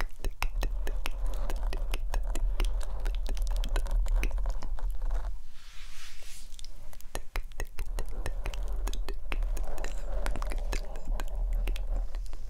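Fingertips and nails scratching and rubbing the foam windscreen of a microphone, a dense crackle of clicks over a heavy low rumble from the handling. The rubbing stops for about a second around six seconds in, then starts again.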